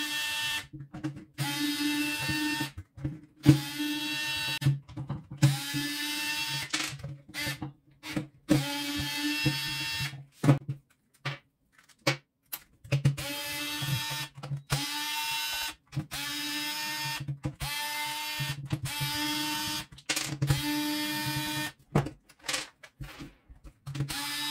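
Small electric screwdriver backing out the screws of a jigsaw's plastic housing in repeated short runs, each whirring up in pitch as it starts. Sharp clicks of screws and parts being handled fall between the runs, and there is a longer pause of clicks only about halfway through.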